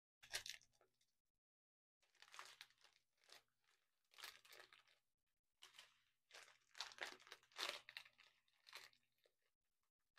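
Small clear plastic bags of resin diamond-painting drills being handled. The plastic crinkles and the loose drills shift inside, in a string of short, faint bursts.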